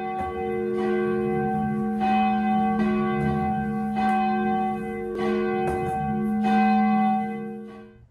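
Church bells ringing, a new stroke about every second over a long ringing hum, fading away near the end.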